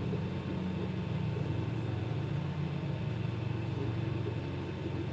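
Creality 3D printer printing a first-layer bed-leveling test: its stepper motors whine in short tones that shift in pitch as the print head moves, over a steady hum from its fans.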